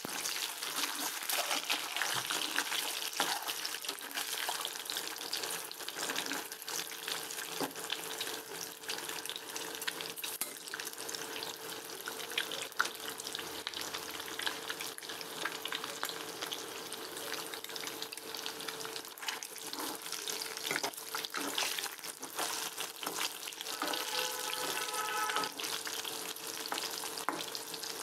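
Whole boiled eggs sizzling and crackling in hot oil in a kadai, with occasional scrapes of a metal slotted spatula turning them.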